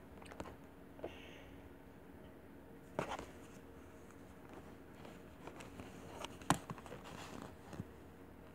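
Close handling of a plastic baby doll and its clothes: soft rustling with a few sharp clicks and light knocks, the loudest about three seconds in.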